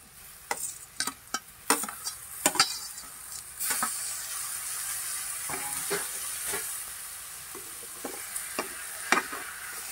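Chopped tomatoes tipped into a kadai of onion and bitter gourd frying in oil: a few knocks and clatters as they go in, then a steady sizzle that rises about three and a half seconds in as the wet tomato hits the hot oil. A metal spoon scrapes and knocks against the pan now and then while stirring.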